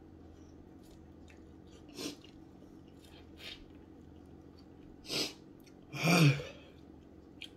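A man chewing a very hot chicken wing and breathing hard against the chili heat: short sharp breaths about two, three and a half and five seconds in, then a loud voiced burst of breath about six seconds in.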